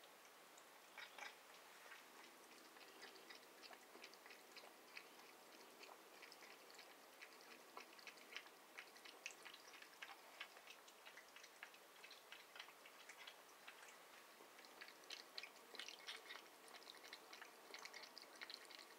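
A cat lapping water: faint, quick, wet tongue clicks in an uneven run, coming thicker near the end.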